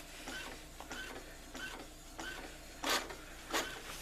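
Brother MFC-J2850W inkjet printer printing a print-quality test page: a run of short, regular mechanical strokes, with two louder ones near the end.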